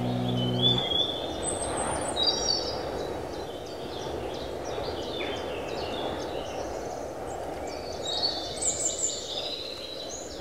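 Several birds chirping and singing in short repeated calls over a steady outdoor background hiss. A guitar music cue cuts off about a second in.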